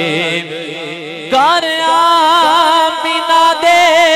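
Male voice singing a naat, drawing out long wavering notes with no words, over a steady low drone; the voice swells in strongly about a second in.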